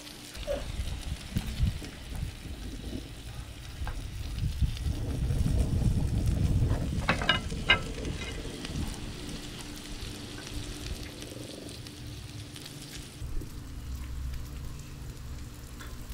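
Leftover food sizzling on a Blackstone propane flat-top griddle: a steady hiss that stops about thirteen seconds in, over a low rumble from the handheld camera. A quick run of clicks about seven seconds in.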